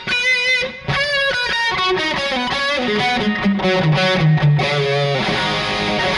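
Schecter ZV Custom electric guitar played through heavy distortion: a lead phrase with wide vibrato on high notes, then a run of notes stepping down to a low held note. It ends on a ringing chord.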